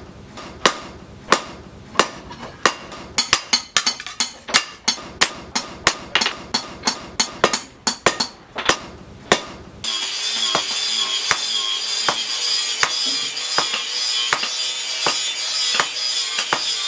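Hand hammer striking a red-hot blade of disc-plough steel on a steel post anvil: sharp ringing blows, about one and a half a second at first, then quicker and uneven. About ten seconds in the sound changes abruptly to lighter, duller blows over a steady high-pitched drone.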